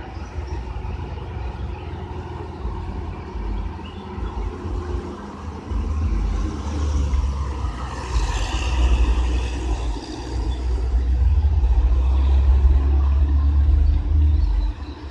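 Road traffic on a hill road. A bus's diesel engine and tyres pass close by about eight seconds in, then cars and buses go past more loudly, all over a steady low rumble.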